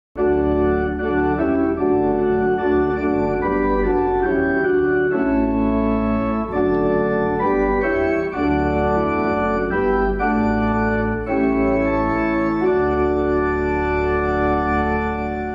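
Organ playing slow, held chords over a sustained bass line, the chords changing every second or so; it cuts in at once and fades out at the end.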